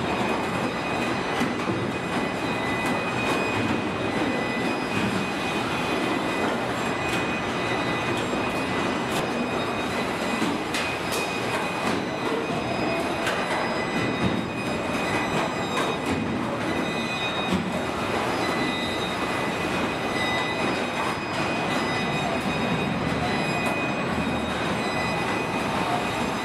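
Steady mechanical din of a robotic car-body welding line, with a few steady high-pitched tones running through it and occasional sharp clicks.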